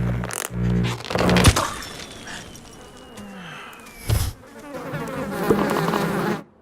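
Cartoon sound effects: a buzzing fly in short bursts, followed by scattered knocks, a thump about four seconds in and a noisy rush that cuts off suddenly at the end.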